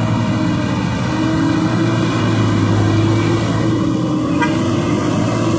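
Mitsubishi Triton pickup's engine running under load at fairly steady revs as the truck crawls up a slippery mud slope.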